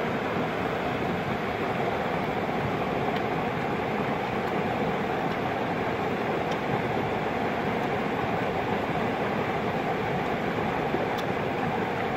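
Shallow river rushing over rocks and small rapids: a steady, even rush of water.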